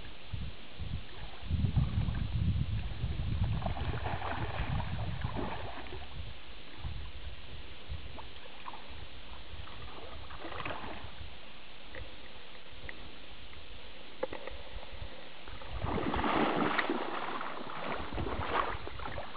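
Water sloshing and splashing in lake shallows while a hooked northern pike is played in. The splashing is loudest about three-quarters of the way through, as the fish comes up thrashing near the shore. A low rumble runs through the first few seconds.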